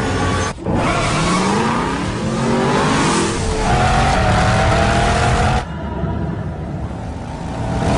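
Mercedes-Benz SLS AMG V8 engine revving and accelerating hard, its pitch rising, then holding high before cutting off suddenly about five and a half seconds in.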